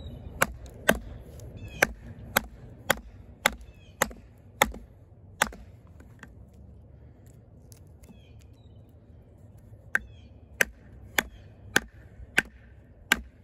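Wooden baton striking the spine of an OERLA OLK-033RD fixed-blade knife, driving the blade through a piece of wood: sharp knocks about two a second for the first five seconds or so. A pause of about four seconds follows, then another run of strikes near the end.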